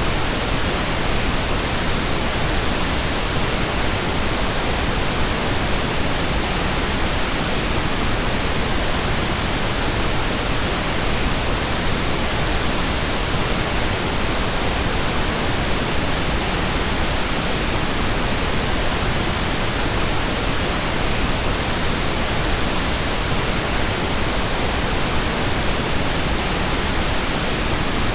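Synthetic pink noise: a steady, even hiss with no changes or events.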